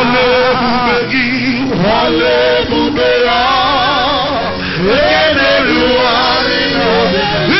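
Congregational worship singing: a male lead voice sings a wavering, ornamented melody over steady held accompanying tones.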